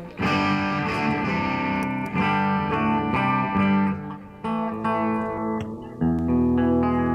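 Guitar being played: a chord struck at the start, then a run of picked single notes, and a deep chord that rings out from about six seconds in.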